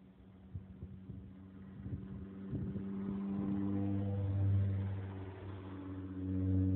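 A motor vehicle engine running, building up about two seconds in and swelling twice, loudest around the middle and again near the end, over a faint steady hum.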